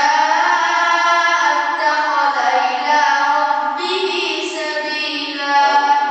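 A boy's voice chanting a melodic recitation from a book into a microphone, drawing out long, wavering held notes that shift in pitch a couple of times.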